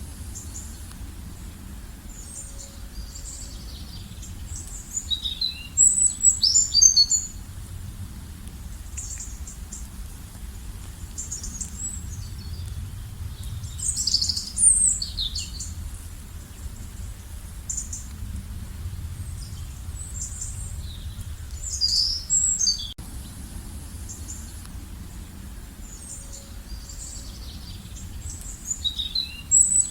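Songbirds singing short, high twittering phrases that recur about every eight seconds, over a steady low rumble.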